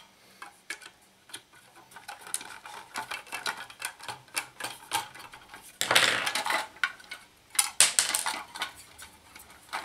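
Chrome wire guard of a 1970s AEPI desk fan clinking and rattling as it is handled during disassembly, with scattered clicks and scrapes of metal and plastic. The louder scrapes and knocks come about six and eight seconds in, as the fan is turned over on the table.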